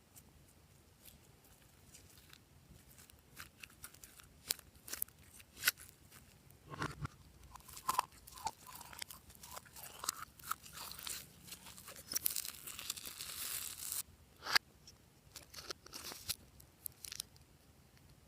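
Glossy slime being squished and worked by hand, with scattered sticky clicks, pops and crunches. About twelve seconds in there is a denser crackling stretch, then a sharp pop.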